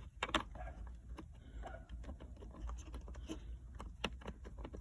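Plastic parts of a minivan center console latch being handled and fitted together by hand: a run of small, irregular clicks and taps with light rustling.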